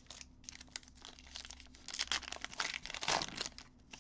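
Plastic wrapper of a baseball card pack being torn open and crinkled by hand, a run of irregular crackles that grows loudest past the middle.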